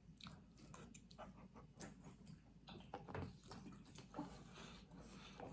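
Faint mouth noises of eating and drinking: scattered small clicks and wet smacks.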